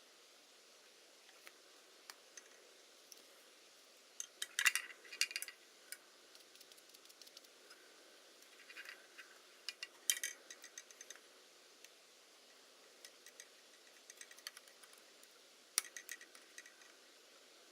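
Small hard clicks and clinks of tools and small parts being handled, in irregular clusters: a rattling run about four to five seconds in, another near ten seconds and a shorter one near the end, over a faint steady hiss.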